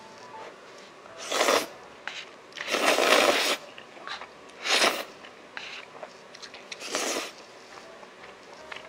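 A person slurping up saucy black-bean instant noodles (Jjapaghetti) with chopsticks: four noisy slurps, the second the longest at nearly a second, with small mouth clicks between.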